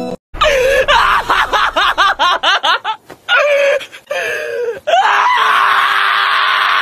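Shiba Inu screaming while restrained and having its paw handled: a run of quick rising-and-falling yelps, then one long, loud held scream from about five seconds in.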